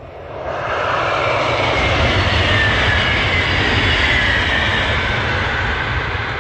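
Al Boraq TGV, an Alstom Euroduplex double-deck high-speed train, passing at full speed: a loud rushing noise that builds within the first second, holds, and begins to ease near the end, with a faint falling whine over it in the middle.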